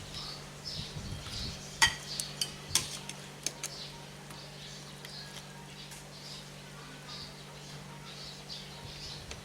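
Metal utensils clinking against a cooking pot and bowl as hot soup is dished up for tasting: a handful of sharp clinks in the first four seconds, then only small sounds. Under them runs a steady low hum and a faint high chirp repeating about twice a second.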